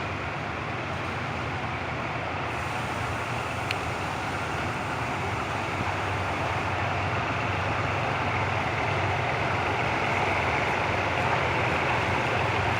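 Diesel locomotive engine running steadily at idle, its low hum slowly growing louder; this is the Caterpillar-engined Alsthom ALS-class locomotive 4120.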